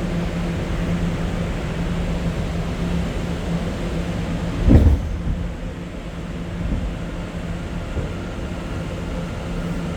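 Ride noise inside a moving R211 subway car: a steady rumble with a low hum, and one loud thump about halfway through. After the thump the noise eases as the train slows for a stop.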